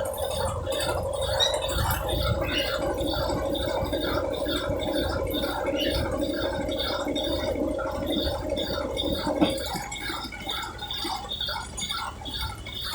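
Brastemp Ative BWL11 11 kg washing machine running its spin program: a steady hum with water gurgling and a quick rhythmic swishing. The hum cuts out about three-quarters of the way through.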